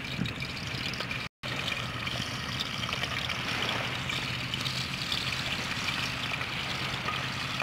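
Pieces of catfish frying in oil in an aluminium pan over a wood fire: a steady sizzling hiss. It cuts out completely for an instant about a second in.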